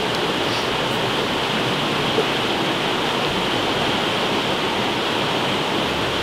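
Fast river water rushing steadily, the constant roar of rapids and white water.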